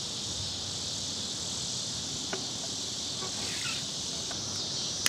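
Steady high-pitched chorus of insects, crickets by their sound, with a couple of faint small clicks as the toy cannon's muzzle is handled.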